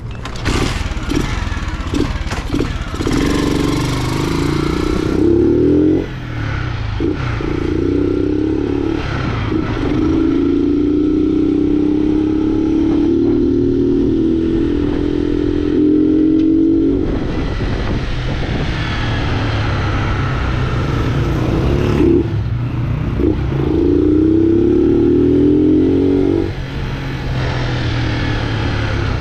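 Honda Fan 125's single-cylinder four-stroke engine running without its air filter while being ridden. The note climbs as it revs and drops away briefly several times as the throttle is closed between gears.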